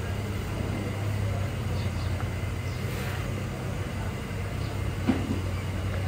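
Steady low engine drone of street traffic, with one sharp knock about five seconds in.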